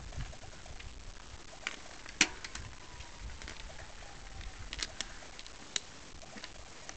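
Mountain bike being walked, remounted and ridden off over rocky ground: scattered sharp clicks and knocks from the bike, the loudest about two seconds in.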